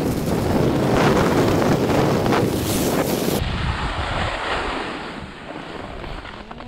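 Skis scraping and carving over packed, groomed snow during a downhill run, with wind buffeting the microphone. It is loudest and hissiest in the first half and eases off after about three seconds as the skier slows.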